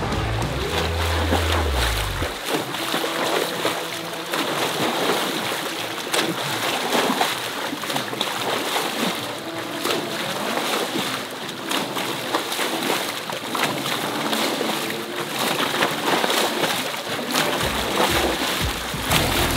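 Water splashing and churning from a swimmer's freestyle arm strokes and kicks in a pool, steady and continuous. Background music runs underneath; its bass drops out about two seconds in and returns near the end.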